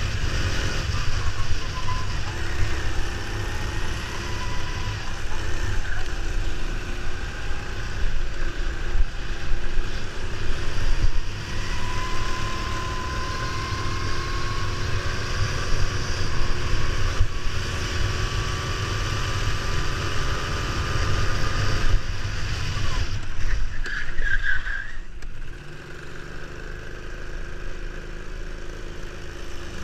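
Go-kart engine running under throttle, heard from the driver's seat with heavy wind rumble on the microphone; the engine note climbs slowly as the kart gathers speed on the straights. Near the end the engine sound drops off as the kart slows into a corner.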